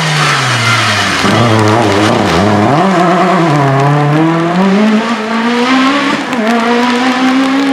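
Rally car engine at full volume: the revs drop for the first couple of seconds, dip and blip sharply around two seconds in, then climb steadily as the car pulls away.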